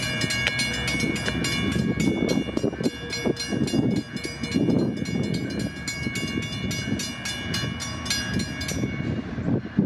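Railroad grade-crossing bell ringing with rapid, evenly spaced dings while the crossing gates rise, then stopping about nine seconds in. A low rumble runs underneath.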